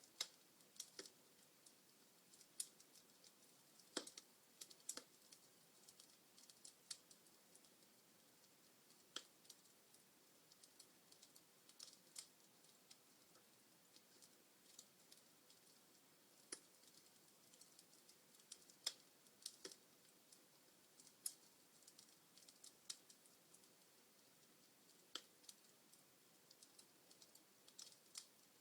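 Log fire in a fireplace crackling faintly, with sparse, irregular sharp pops and snaps, a few of them louder than the rest.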